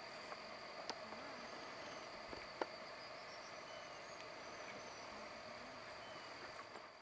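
Insects trilling steadily at one high pitch over a lower, steady drone, with a few faint chirps and a couple of sharp clicks, the loudest about two and a half seconds in. The sound starts to fade near the end.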